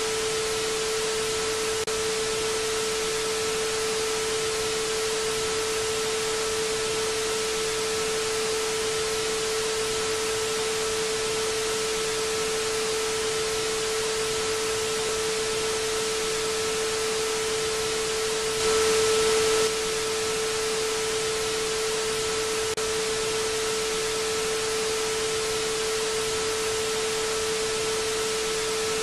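Television static: a steady white-noise hiss with a constant mid-pitched tone underneath. About two-thirds of the way in, the hiss swells louder for about a second, then settles back.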